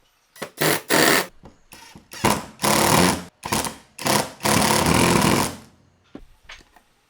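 A handheld power tool run in a string of short bursts, stopping and starting several times, with the last and longest burst lasting about a second, as when driving screws while assembling the stand.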